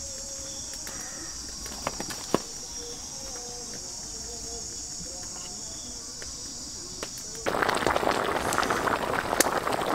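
Steady high-pitched insect buzz with a couple of light clicks. About seven and a half seconds in it gives way suddenly to loud bubbling and crackling from a pot of eggs and fish simmering in sauce.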